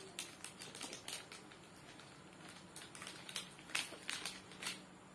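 Light, irregular clicks and crackles of small plastic parts and packaging being handled, in a quick cluster at the start and another about three seconds in.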